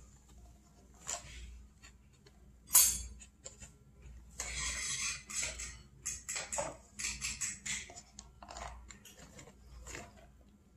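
Dry Bisquick pancake mix being scooped from the box's plastic inner bag with a plastic measuring cup and tipped into a mixing bowl: scraping and bag rustling in short bursts, with one sharp click of the cup about three seconds in.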